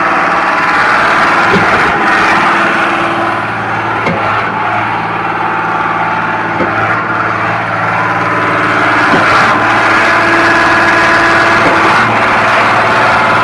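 Concrete pump running steadily under engine power, with a short knock every two to three seconds.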